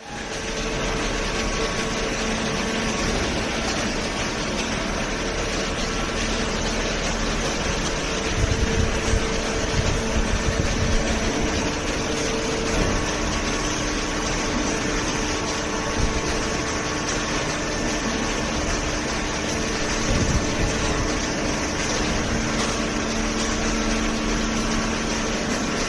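Hydraulic baler running: a steady mechanical hum from its motor and pump, with a few held tones. It gets briefly louder and rougher about eight seconds in and again around twenty seconds.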